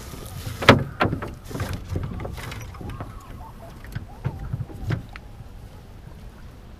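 Knocks and clatter aboard a small wooden Melonseed sailing skiff as it tacks and the spritsail swings across: a quick run of sharp knocks in the first two seconds and a few more about four to five seconds in, over steady wind and water noise.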